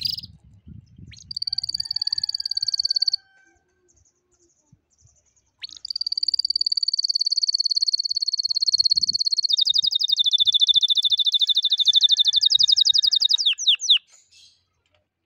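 Domestic canary singing in rapid rolling trills. A short trill is followed by a pause of a couple of seconds, then a long trill that drops to a lower, faster one about ten seconds in and ends with a few quick downward notes.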